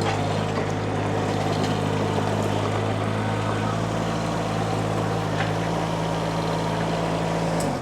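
Mini skid steer engine running steadily, then shut off near the end, the sound dropping away quickly.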